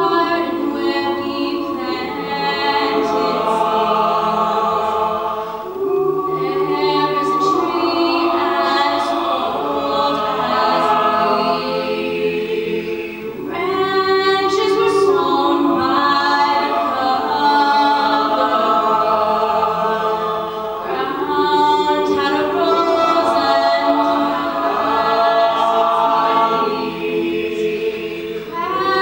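Live a cappella group: a female soloist singing over sustained chords from a mixed-voice backing ensemble, in long phrases that swell and ease off every several seconds.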